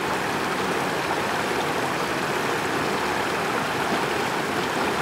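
Steady rush of a mountain creek running over rocks.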